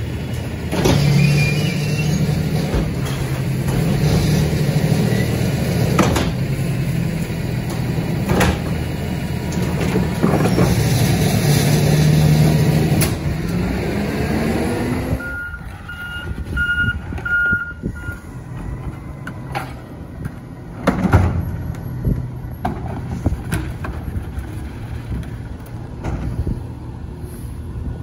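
Autocar ACX rear-loader garbage truck's diesel engine running loudly, its note rising just before it drops sharply about halfway through. Right after, the truck's backup alarm beeps four times, then the engine runs on more quietly, with one loud bang about three quarters of the way in.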